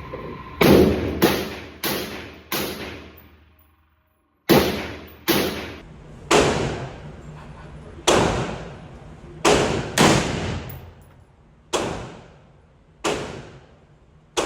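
A 5.56 AR pistol firing about thirteen single shots at an irregular pace, each crack followed by an echoing decay. There is a brief dead silence a little before the middle.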